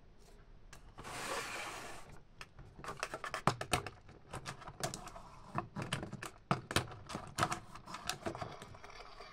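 Hard plastic toy track pieces and a plastic toy being handled on a table. A second-long scrape about a second in, then a rapid, irregular run of clicks and clattering knocks.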